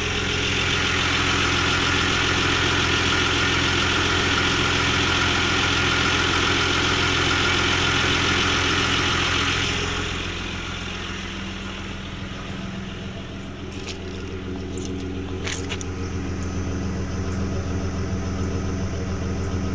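Isuzu Trooper engine idling steadily with only a very slight tick, which the owner now takes to sound normal. A loud hiss runs over it for the first half and drops away about halfway through, and a few sharp clicks come later.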